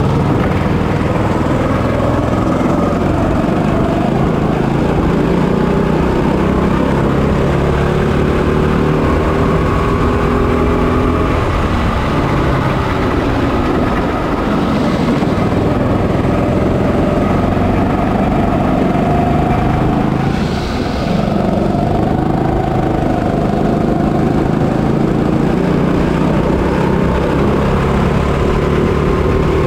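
Onboard sound of a 200cc Honda GX200-type single-cylinder four-stroke kart engine running continuously at racing speed. Its pitch drops as the kart slows for corners and climbs again under acceleration, rising steadily near the end.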